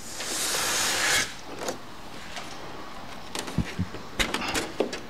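Styrofoam packing insert scraping against the cardboard box as it is pulled out, a hissing scrape lasting about a second near the start. A few light knocks and handling sounds follow.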